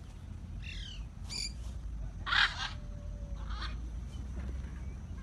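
Parrots squawking in short, separate calls, four or so, the loudest about halfway, over a steady low rumble.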